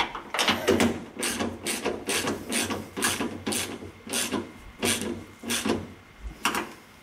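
Hand ratchet on a socket extension clicking through repeated short swings, about two strokes a second, as a fastener is tightened.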